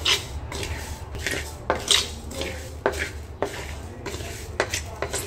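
Wooden spatula stirring and scraping dry rice roasting dark in a pan, the grains rattling against the pan in a dozen or so irregular strokes over a steady low hum.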